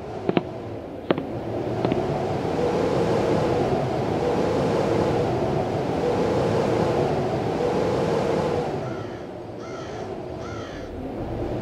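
A crow cawing twice near the end, two short harsh calls, over a steady low background that swells and fades about every two seconds. A few sharp clicks sound in the first two seconds.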